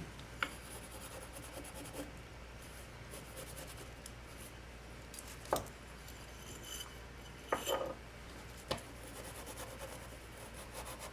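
A few light, sharp clicks and taps of small metal soldering-iron parts being handled and set down, spaced several seconds apart, over a low steady hum.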